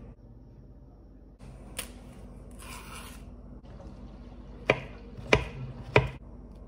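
A knife slicing a peeled banana on a wooden chopping board, the blade knocking sharply on the board three times, about two-thirds of a second apart, in the second half. Before that comes a single click and a brief rustle.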